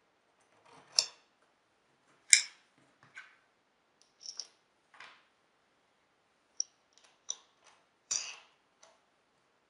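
Steel wing nuts, washers and bolts clinking and plywood corner blocks being set down on a homemade picture frame clamping jig: about ten separate light clicks and knocks, some with a brief metallic ring, the loudest about two and a half seconds in.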